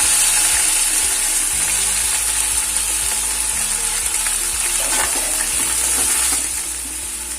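Chopped onion, ginger, garlic and green chillies sizzling hard as they fry in hot oil with cumin seeds, the sizzle easing slightly near the end.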